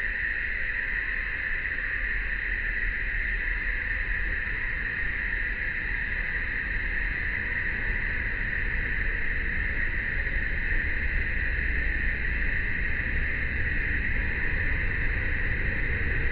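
Steady, unbroken chorus of summer cicadas, a continuous high buzzing, over a low rumble.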